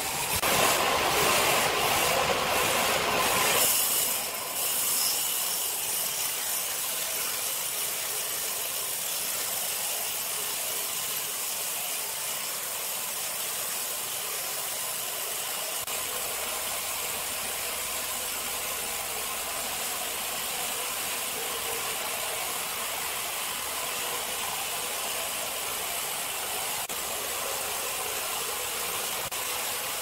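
Large band sawmill's blade cutting lengthwise through a big log, a steady hissing rush of blade and sawdust. The sound drops abruptly to a quieter, thinner hiss about four seconds in.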